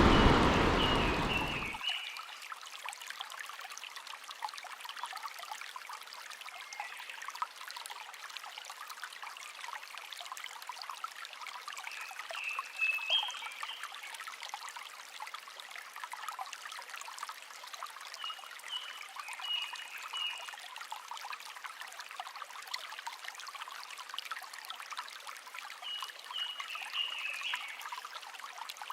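Mountain stream water flowing steadily, with short chirping bird calls breaking in several times.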